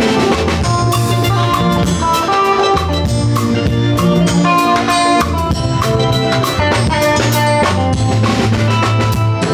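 Live band playing an instrumental passage: drum kit and electric guitar over a sustained bass line, loud and continuous.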